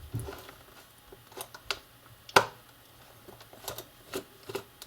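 Sparse small clicks and taps of a precision screwdriver working on a mobile phone's plastic case screws, with one sharper click about halfway through.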